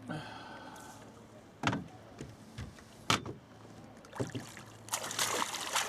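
Knocks and thumps on the boat as a freshly landed pike thrashes while it is being unhooked: sharp knocks a second or so apart, then a rough scraping and rustling stretch near the end, over a steady low hum.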